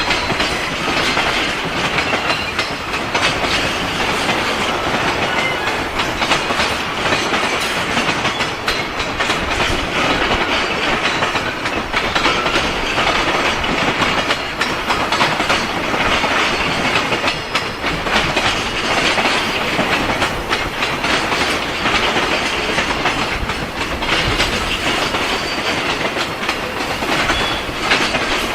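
Freight train wagons rolling past on the rails, wheels clicking over the rail joints, steady and continuous.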